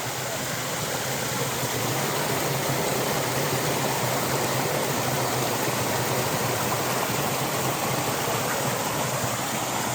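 Steady rush of river water flowing over rocks, an even hiss with no breaks.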